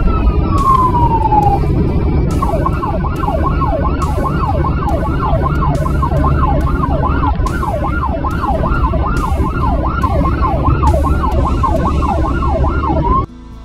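Fire truck siren heard from inside the cab: a slow wail falling away over the first second or two, then a rapid yelp of about three up-and-down sweeps a second, over engine and road rumble. It cuts off abruptly near the end.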